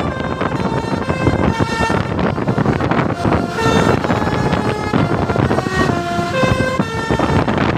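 Telolet basuri bus horn playing a tune, its notes stepping up and down every fraction of a second, over heavy vehicle and road noise.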